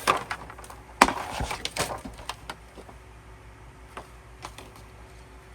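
Album packaging handled by hand: one sharp click or knock about a second in, a brief rustle shortly after, then faint scattered taps.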